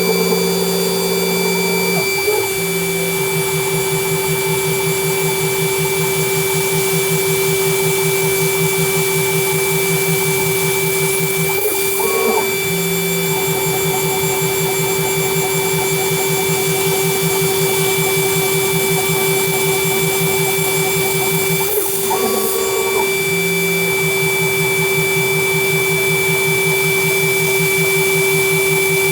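CNC router spindle running steadily at 24,000 rpm, a 2 mm end mill cutting polycarbonate at 10 inches per minute. Beneath the spindle's whine runs a lower pulsing hum from the machine's axis drives, which stops briefly and changes about every ten seconds.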